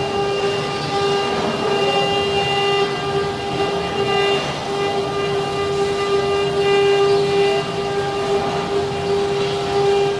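A CNC stone-carving machine's spindle running with a steady whine over a noisy cutting hiss. The whine breaks off briefly about four and a half seconds in.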